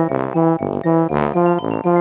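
Upbeat background music with a bouncy, steady beat of short repeated notes.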